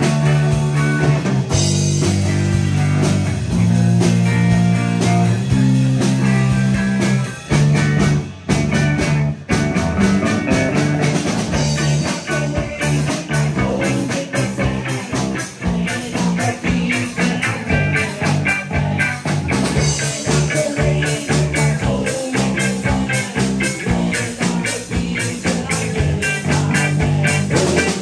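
Live rock band playing electric guitars and a drum kit, with heavy sustained low notes. The music stops short a few times near the middle, then the drums keep up a fast, steady beat.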